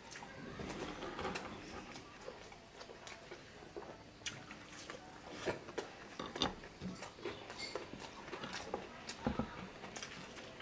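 Close-up eating sounds: chewing, with irregular mouth clicks and smacks as food is eaten by hand.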